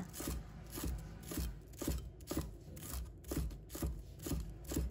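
Knife cutting coriander stalks into short pieces on a cutting board, an even stroke with a soft thump about twice a second.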